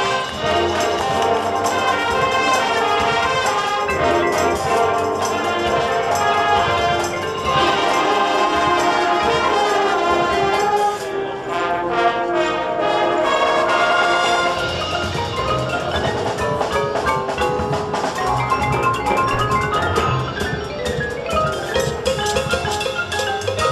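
High school marching band playing its field show: brass and woodwinds with the front ensemble's marimbas and other mallet percussion prominent. The music thins briefly about halfway through, then fuller low notes come in.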